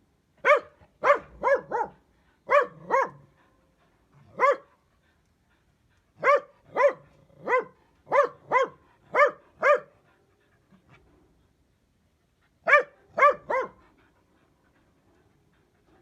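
A dachshund barking: short, sharp, high-pitched barks in four bouts of three to seven, with pauses of a second or two between the bouts.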